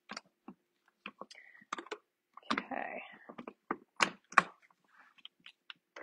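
Light plastic clicks and taps, a dozen or so at uneven intervals, as the motor unit of a Flex Plus cordless hand blender is fitted and locked onto the lid of its food processor attachment, with a brief rustle about two and a half seconds in.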